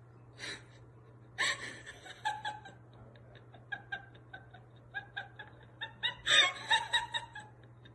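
A person's quiet, stifled laughter in short repeated bursts, several a second, rising to a louder burst near the end.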